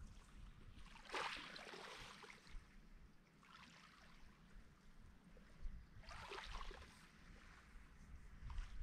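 Faint small waves lapping on a pebble shore of a calm lake, with two soft washes, about a second in and again about six seconds in.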